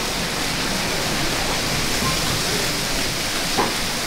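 Steady rushing noise of splashing water from a splash park's spray jets and fountains, with no distinct events apart from a small click about three and a half seconds in.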